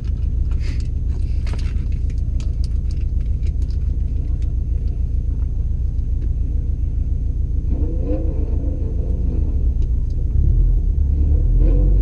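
Built 2.5-litre turbocharged flat-four of a 2011 Subaru WRX STI idling, heard from inside the cabin as a steady low rumble. About ten and a half seconds in it grows a little louder.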